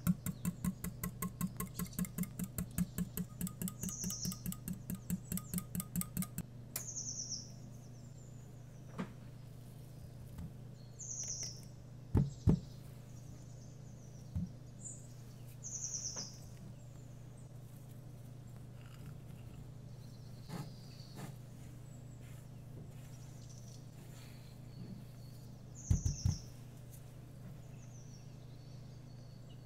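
A whisk beating eggs and oil in a glass measuring jug, about four quick strokes a second for the first six seconds. Recorded winter-morning birdsong runs underneath as short falling chirps every few seconds, and there are a couple of short thumps about twelve seconds in and again near the end.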